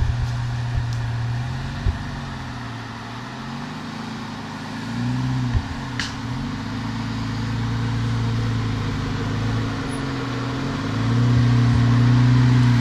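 Jeep Wrangler engine pulling at low revs as it crawls over ruts and a log, the engine note dipping and rising with the throttle and loudest near the end. A few short sharp knocks come through over it.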